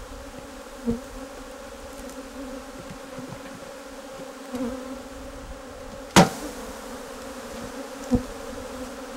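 A mass of honey bees buzzing in a steady hum, with a few sharp knocks against the wooden hive box, the loudest about six seconds in and another near the end, as frames are jarred to shake the bees off.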